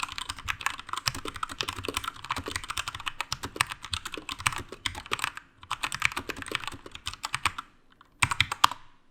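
Keychron K2 Version 2 aluminium mechanical keyboard being typed on fast, a dense run of key clacks. The typing pauses briefly twice, and a short last burst comes near the end.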